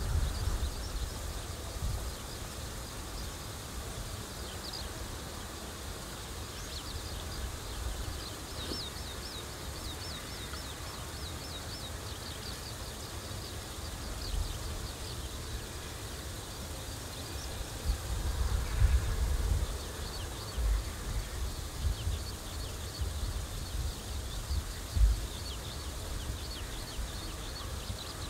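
Outdoor ambience: wind gusting on the microphone, with a few louder buffets past the middle. Runs of quick, high chirps repeat several times a second from a small animal.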